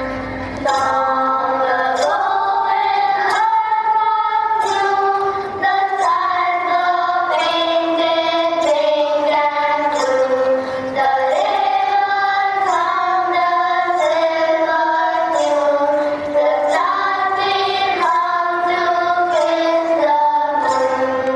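A song sung in high voices, a woman's or children's, over musical accompaniment, with held melodic notes and a steady beat.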